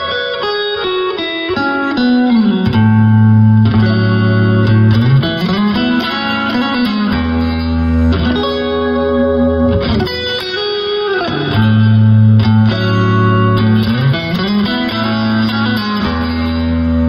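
Electric guitar played through a Vintage Sound Vintage 20 all-tube combo amplifier with a clean tone. It plays sustained chords that change every two to three seconds, with low notes sliding between chords, in a progression that repeats about halfway through.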